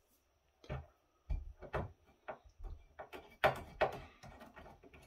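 Parts of an opened rack-mount network appliance being handled: a series of irregular clicks and knocks, about eight in a few seconds, the loudest about three and a half seconds in.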